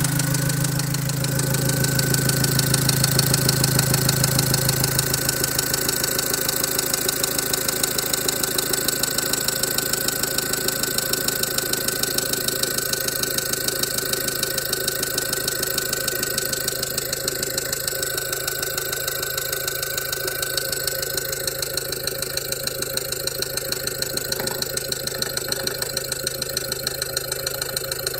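Opel Vivaro's 1.9-litre F9Q diesel engine idling warm with a rapid, even knock, the knocking that sets in once the engine has warmed up. It runs a little louder for the first five seconds or so, then settles to a steady idle.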